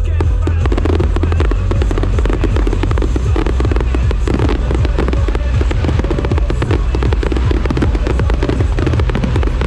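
A dense fireworks barrage: a rapid, unbroken string of bangs and crackles, many per second, over a deep rumble.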